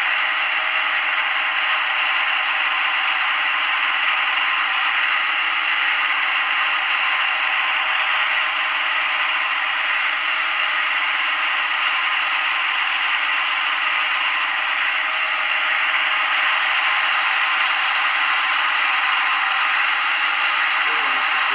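Steady, unbroken scraping machining noise from a CNC lathe simulator's cutting sound effect as the grooving tool feeds into the turned part.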